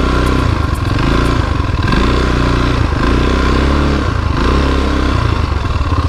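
ATV engine running, its pitch rising and falling several times as the throttle is opened and eased off.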